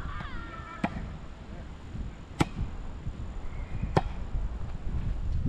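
A volleyball being struck by hands in play, three sharp slaps about a second and a half apart.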